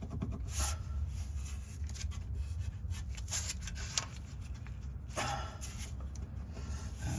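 A plastic guide tube being worked by hand into a spare tire hoist: a few short scrapes, rubs and light clicks over a steady low rumble.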